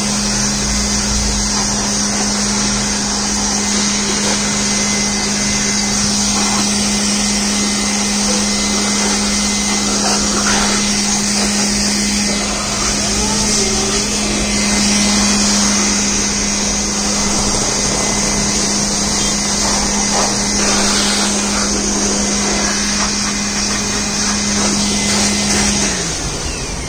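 Handheld electric air blower running steadily, a constant motor hum under a strong airy hiss, as it blows dust out of a desktop computer case. Near the end it is switched off and the hum drops in pitch as the motor winds down.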